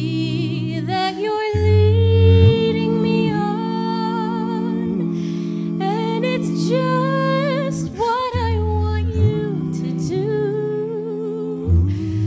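Mixed a cappella vocal quartet singing sustained, wordless chords in close jazz harmony. A bass voice moves underneath and the top voice wavers with vibrato.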